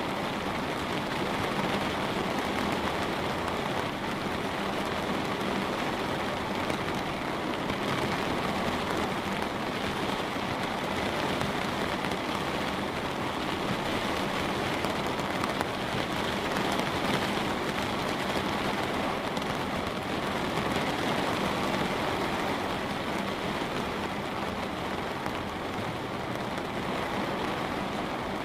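Light rain falling steadily on a window, an even patter of drops.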